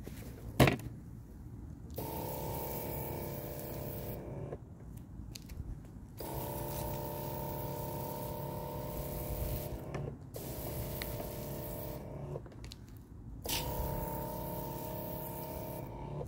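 Motorized liquid sprayer running in four bursts of a few seconds each: a steady pump hum with a hiss of spray from the nozzle, stopping briefly between bursts. A sharp click comes just before the first burst.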